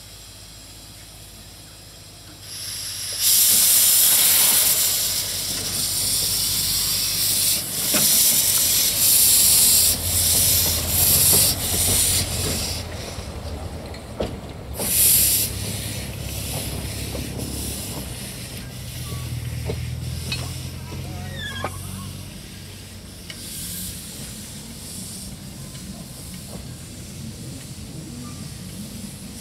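Small narrow-gauge steam locomotive, the 1924 Wee Georgie Wood, starting away with loud steam hiss from about three seconds in. Steam blows out low at the front, typical of open cylinder drain cocks. The hiss swells in several pulses, with a strong burst about halfway through, then eases to a lower hiss as the train draws away.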